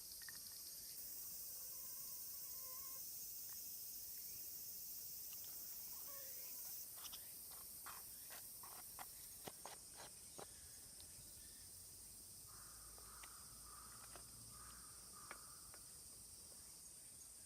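Faint steady chorus of insects buzzing high and continuously, with a quick run of light clicks about halfway through.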